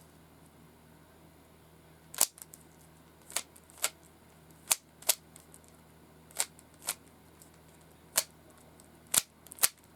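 Plastic Rubik's cube being twisted, each face turn giving a sharp click. About ten clicks begin a couple of seconds in, several coming in quick pairs.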